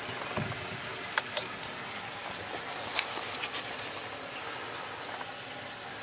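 Someone climbing wooden stairs: a few sharp clicks and soft knocks over a steady hiss.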